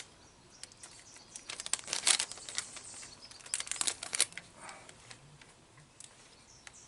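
Plastic packaging of a replacement-parts kit crinkling and rustling as it is handled and opened, in short bursts about two and four seconds in.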